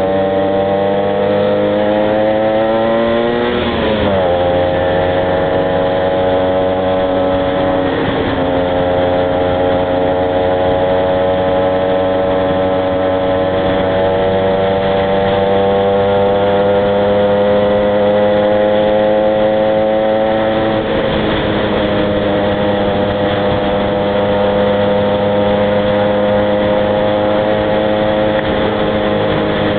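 Two-stroke engines of a Honda NSR 125R motorcycle and a Yamaha Aerox scooter under way. The engine note climbs slowly in pitch, then drops sharply about 4, 8 and 21 seconds in, as at gear changes.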